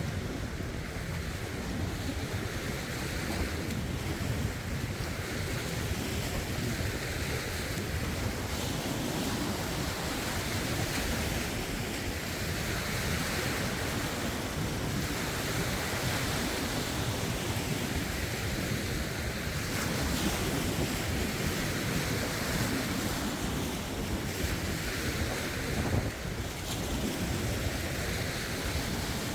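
Lake waves lapping and washing over rocks in gentle swells every few seconds, with wind buffeting the phone's microphone as a low rumble.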